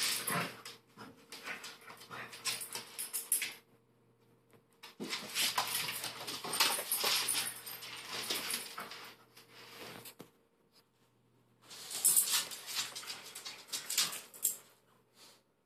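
A pug and a Boston terrier playing rough: dog noises and scuffling as they chase and wrestle, in three bouts with short pauses between them.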